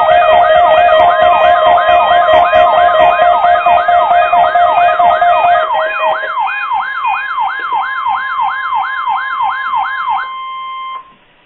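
Electronic siren wailing rapidly up and down, about three sweeps a second, over a steady high tone. It gets quieter about six seconds in and cuts off suddenly near the end.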